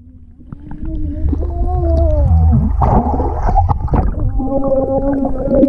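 Muffled underwater sound of a child swimming and blowing bubbles, heard below the surface of a pool: a low rumble of water with wavering, hum-like tones that bend up and down. It starts faint and grows louder about a second in.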